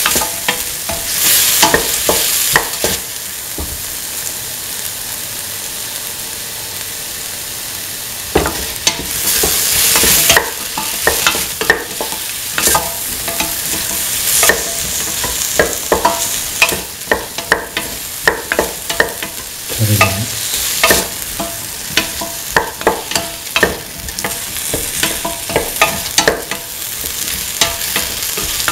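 Okra, tomato, shallots and red chillies sizzling in oil in a metal pan while a spatula stirs them, knocking and scraping against the pan in many short clicks. About three seconds in, the stirring stops for about five seconds, leaving only the steady sizzle, then starts again.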